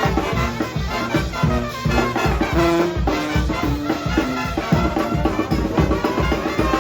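Brass band playing live: trumpets and other horns carrying a tune over a steady, driving drumbeat.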